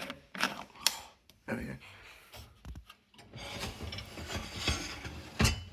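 Integrated Bosch Series 4 dishwasher being handled and loaded: a few sharp clicks and knocks, then about two seconds of rolling, rattling rubbing, as of a rack sliding on its rails. A loud knock comes near the end.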